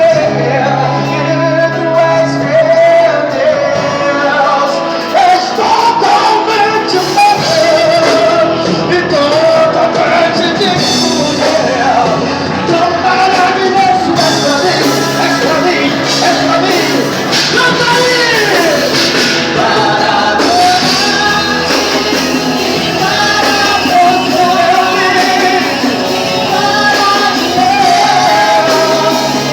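Live worship music: a group of male and female voices singing over band accompaniment, with a large-hall sound.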